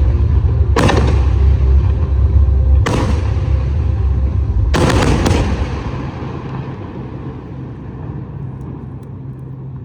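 Fireworks display: about four loud bangs of exploding shells, the last two half a second apart, over a heavy rolling rumble of echo that fades away after the last burst.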